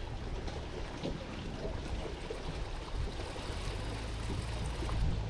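A steady wash of wind and water noise out on open water, with a low rumble of wind on the microphone and a few faint ticks.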